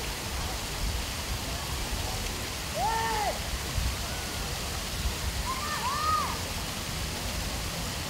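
Steady splashing and pattering of water from a tiered stone fountain spilling into its pool. A couple of short high calls rise and fall over it, about three and six seconds in.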